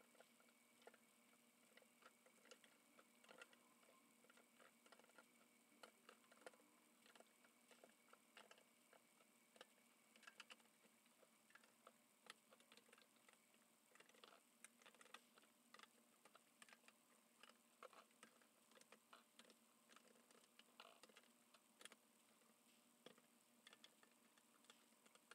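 Faint, irregular clicks and taps of small plastic acrylic paint bottles being set one by one into a wire napkin-holder rack.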